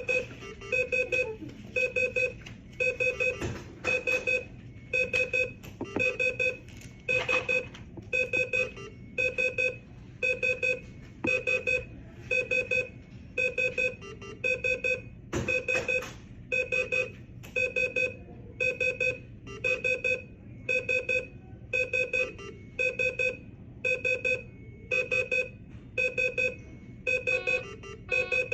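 ICU bedside equipment alarms for intubated, sedated patients beeping nonstop: short clusters of electronic beeps, a low tone and a high tone sounding together, repeating about once a second, with an occasional faint knock underneath.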